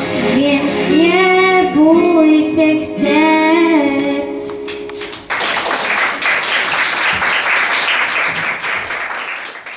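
A girl sings the closing phrases of a song over held instrumental accompaniment, which stops abruptly about five seconds in. An audience then applauds until near the end.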